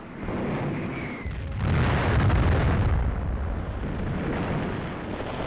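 Explosion of an Atlas rocket deliberately destroyed in flight after going off course. A rushing noise swells about a second and a half in into a deep, rumbling blast, which then slowly dies away.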